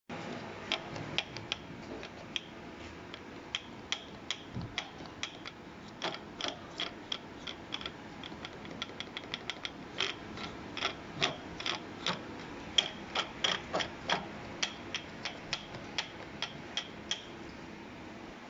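Ratchet wrench clicking, working a bolt in short irregular clicks, about two a second, over a low steady hiss.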